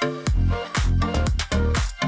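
Background electronic dance music with a steady beat and deep bass.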